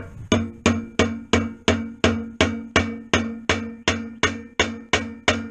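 Brass hammer tapping a new bearing's outer race into the bearing housing of a disk harrow, pressing it in by hand without a press. Steady, even strikes, about three a second, each giving a short metallic ring.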